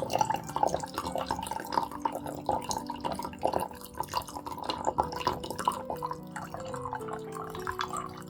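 Liquid pouring and splashing into a container, a dense run of drips and splashes that thins out after about five seconds, over soft background music.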